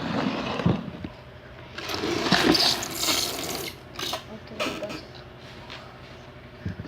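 Slime being worked by hand, wet squelching noises, with a few short pops near the middle as air bubbles in it burst.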